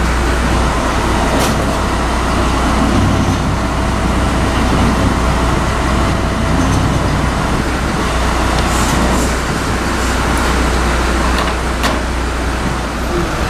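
Heavy vehicle's engine idling, a steady low rumble, with a couple of faint clicks.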